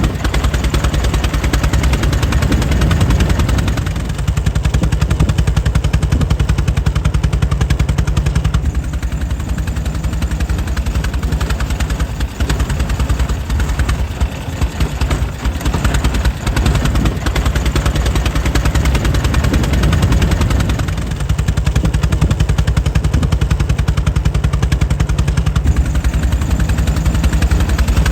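Air-cooled 1904 Mitchell engine running steadily, its exhaust firing in a rapid, even train of beats.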